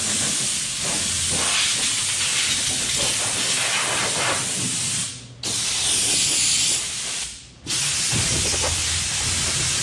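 Compressed air from a blow gun hissing steadily over a dirt late model's engine, blowing it clean. The blast stops briefly twice, about five seconds in and again about two seconds later.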